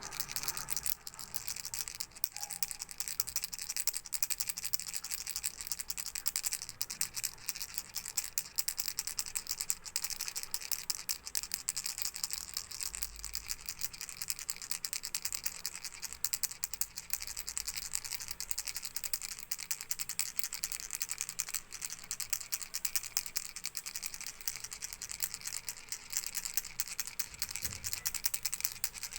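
Baby's toy rattle shaken steadily, a fast, dense stream of small clicks without pauses.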